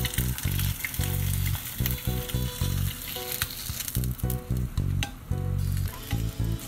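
Hot oil sizzling around a just-fried egg as it slides out of the frying pan onto the plate, over background music with a steady rhythmic bass line.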